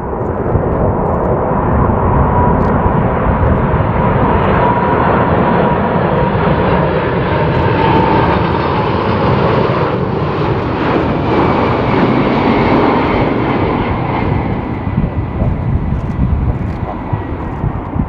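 Boeing 747-400 freighter on final approach with its four jet engines running: a dense rumble with a thin steady whine on top. It grows louder as the jet passes close about halfway through, then eases off as it heads on toward touchdown.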